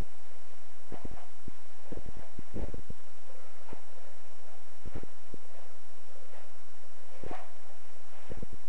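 Dull low thuds of feet landing and stepping on the floor, with brief rustles of clothing, at irregular intervals as a martial-arts form is performed, a cluster of them about two to three seconds in. A steady low hum runs underneath.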